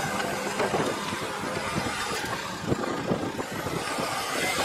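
JCB 536.60 telehandler's diesel engine running as the machine drives across the maize clamp, with a few short knocks.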